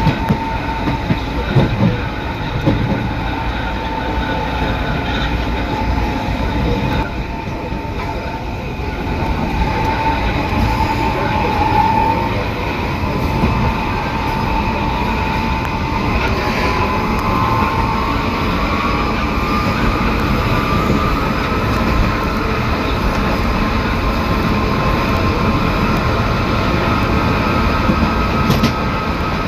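Metro car's traction motors, inverter and reduction gearbox running under way, a motor-and-inverter whine that rises in pitch partway through and then holds, over a growl from the reduction gearbox, which the uploader takes to be probably short of lubrication.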